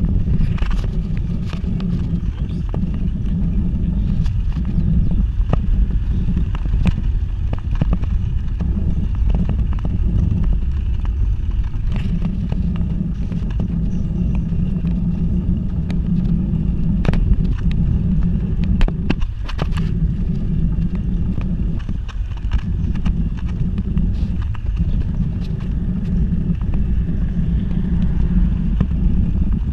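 Road and wind noise from a moving bicycle: a steady low rumble of tyres on asphalt and air over the microphone, with frequent light clicks and rattles scattered through it.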